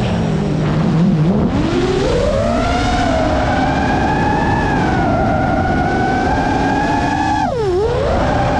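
FPV quadcopter's brushless motors and propellers whining, their pitch dropping sharply as the throttle is cut at the start, climbing back after about a second and holding, then dipping sharply and rising again near the end, over a steady low noise.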